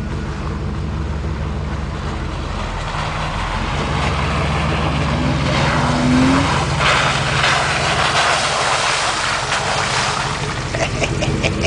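Off-road vehicle engine running, getting louder from about four seconds in. Through the middle and on to near the end, a loud rushing noise rides over it, with a few knocks near the end.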